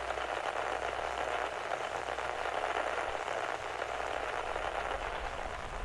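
Steady radio static hiss on an open channel with no reply. A low rumble creeps in underneath near the end.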